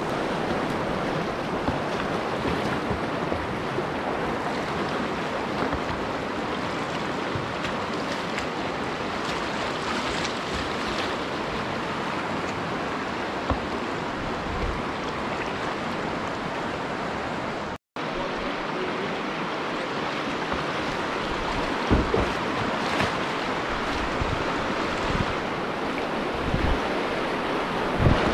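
Steady rushing whitewater of a river rapid, with a few low thumps near the end. The sound cuts out for a moment partway through.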